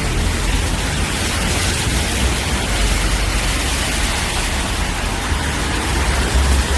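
Car tyres hissing on a rain-wet road over steady rainfall, with a low rumble underneath; the hiss swells for a while in the middle as a car passes.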